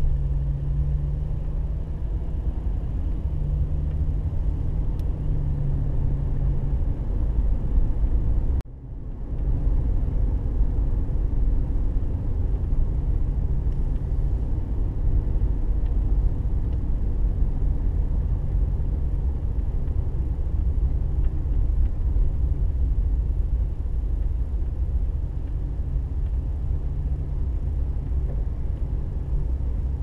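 Car driving along a paved road: steady low engine and road rumble with a faint hum. The sound drops out for a moment about nine seconds in.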